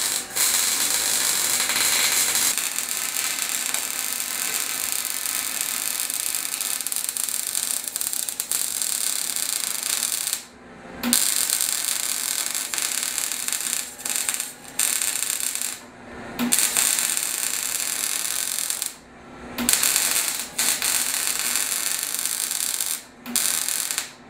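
Electric welding arc crackling and sizzling as it fuses steel tubing. The arc breaks off briefly several times in the second half, each time striking up again.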